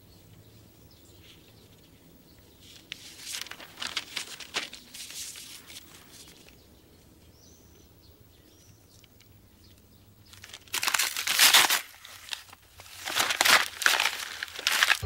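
Paper crinkling and crumpling in the hands, in rustling bouts: a softer stretch a few seconds in, then two louder bouts near the end.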